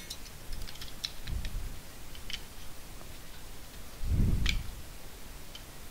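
Light plastic clicks and handling as a Samsung TV remote's circuit board is fitted back into its plastic housing, with a louder dull bump about four seconds in.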